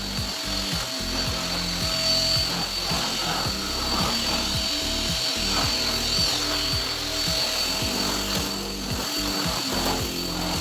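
Elgin 2-in-1 upright stick vacuum cleaner running, its motor giving a steady high whine, under background music.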